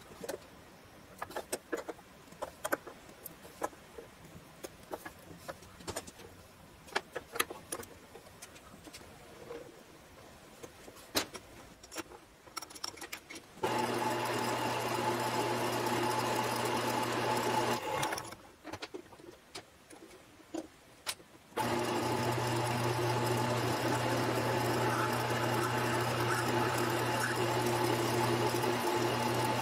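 Small metal lathe: first a series of metal clicks and knocks as it is set up by hand, then its electric motor and belt drive start up with a steady hum about halfway through, stop for a few seconds, and run again while a drill bit in the tailstock bores into the spinning workpiece.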